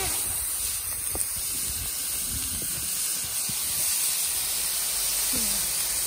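Ground meat and mixed vegetables sizzling on a large round griddle pan: a steady frying hiss with the odd faint click.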